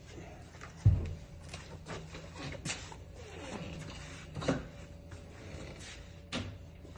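Scattered clicks and knocks of hands handling hard objects, with a heavy thump about a second in and a sharper knock about halfway through.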